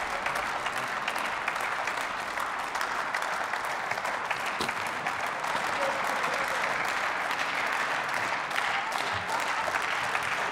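Steady applause from members of parliament in the plenary chamber: many hands clapping.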